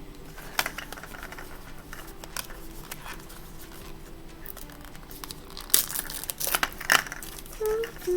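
Small plastic wrapper crinkling and tearing as a mini toy item is unwrapped by hand, in scattered crackles that get louder and busier about six seconds in.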